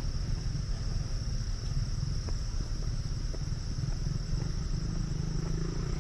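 A steady, high-pitched drone of insects, such as crickets or cicadas, over a constant low rumble.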